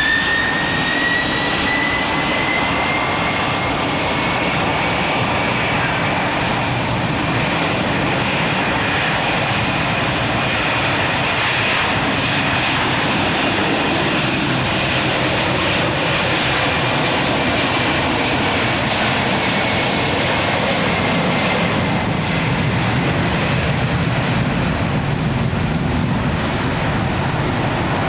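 Jet airliner's engines running, with a turbine whine that rises in pitch at the start and then slowly falls, over a steady rushing noise.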